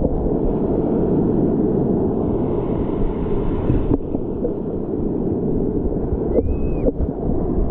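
Wind buffeting the microphone over the wash of breaking surf, a steady loud rushing that covers everything else.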